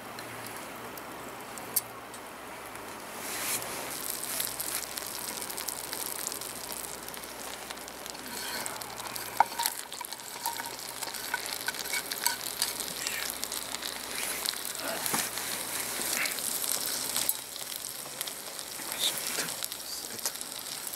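Butter sizzling in a cast-iron skillet over charcoal; about three seconds in the sizzling grows louder and fuller as sliced vegetables go into the hot fat. A few sharp clicks of chopsticks against the pan.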